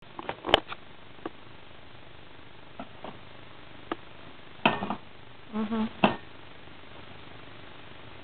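A cat eating from metal bowls, giving irregular sharp clicks and a short cluster of crunching clicks. There is also a brief low voiced sound a little after the middle.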